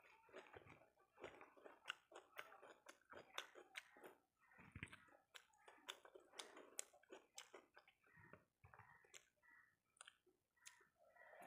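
Faint chewing and lip-smacking of a person eating a rice meal, with many short irregular mouth clicks.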